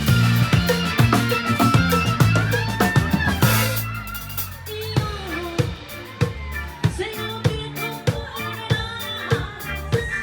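Band music with drum kit and bass; about four seconds in it drops to a quieter, sparser passage where single drum hits stand out.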